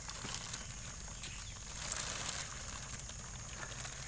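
Clear plastic bag rustling and crinkling softly as hands pick live crickets out of it, most around the middle, over a steady high insect chirring.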